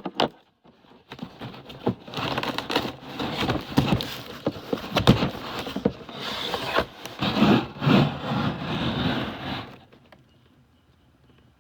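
Cardboard shipping case being opened and handled: scraping and rubbing of cardboard with many sharp knocks and taps, stopping about ten seconds in.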